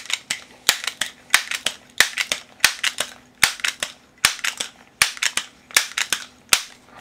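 Multi-pump pneumatic pellet pistol being pumped up, about ten even strokes roughly three-quarters of a second apart, each stroke a pair of sharp clacks as the pump lever is swung open and shut, building air pressure for a stronger shot.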